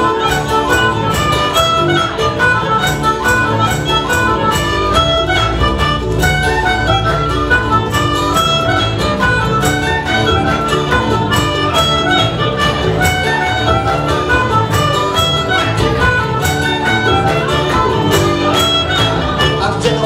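Irish folk band playing an instrumental break live: a fiddle tune over steadily strummed acoustic guitars and bass guitar, with an even beat throughout.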